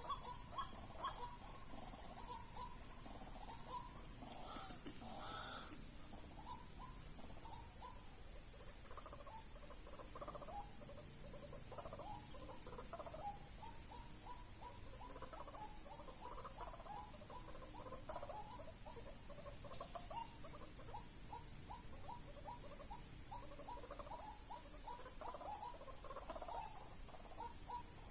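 White-breasted waterhens calling, a long run of short repeated notes, with a steady high-pitched insect drone behind them.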